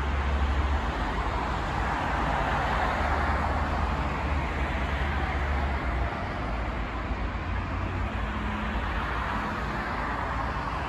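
Steady city road traffic noise from a multi-lane avenue below, cars passing with a low rumble underneath.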